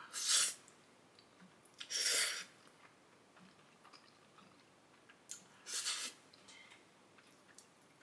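Person slurping ramen noodles three times, each slurp a short hiss of drawn-in air, with faint chewing in between.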